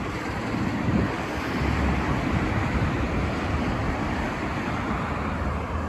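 Wind buffeting the microphone: a steady, rough, low rumble that keeps flickering, with no clear tone.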